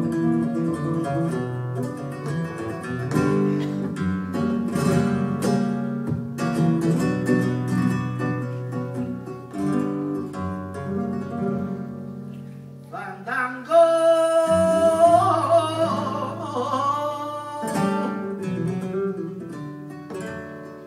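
Flamenco guitar playing a fandango. About two-thirds of the way in, a singer comes in over it with a long, wavering, ornamented sung line, and the guitar carries on beneath the voice.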